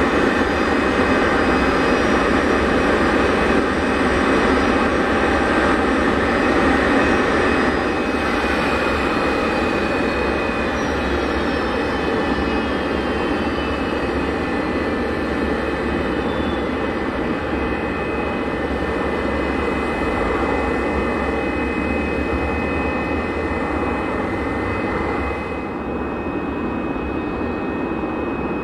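Boeing 747SP's jet engines running at taxi idle: a steady rush with a high whine. From about eight seconds in, several high tones glide slowly downward, and near the end the high hiss drops away and the sound gets a little quieter.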